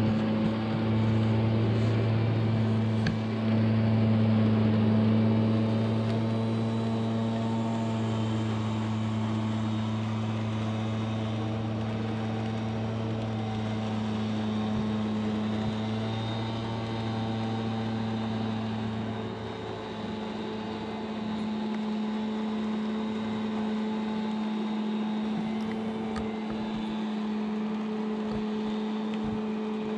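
Gas backpack leaf blower running at a steady high throttle, a constant engine drone. It grows somewhat fainter as the blower moves away, with a brief dip about twenty seconds in.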